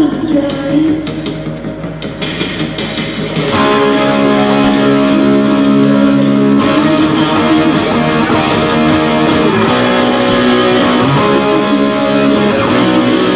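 Background music led by guitar, which gets louder and fuller about three and a half seconds in.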